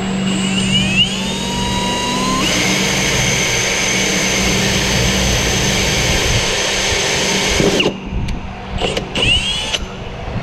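Power drill spinning up, running steadily for about five seconds as it drills a hole through a black plastic grille-mesh support panel with a smaller bit, then cutting off abruptly. Two or three short bursts of the trigger follow, each a quick rising whine.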